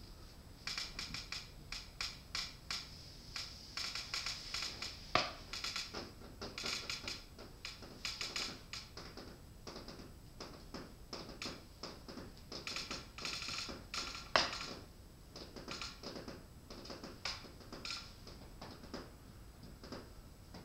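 Electronic noise: an irregular stream of short stuttering clicks and crackles, with two sharper, louder cracks about five and fourteen seconds in.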